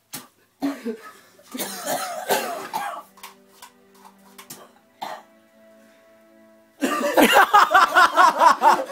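A man coughing hard after Axe deodorant spray has been sprayed into his mouth, over background music. Loud laughing voices break out near the end.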